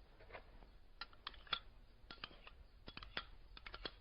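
Faint, scattered light clicks and taps of a spoon against a bowl as mayonnaise is spooned in.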